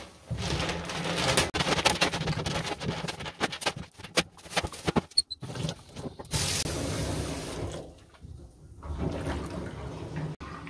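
Tap water running into a stainless steel kitchen sink while wet hard candies are scooped and rinsed out by hand, with many sharp clicks and clatters. About six seconds in there is a louder rush of water for a second or so, then the water quietens as the sink fills.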